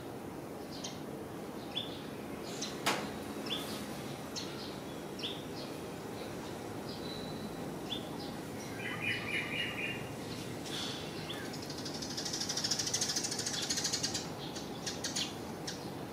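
Small birds chirping, with short high notes scattered throughout over a steady background hum. A rapid trill comes about nine seconds in, and a brief hissing buzz comes near the end.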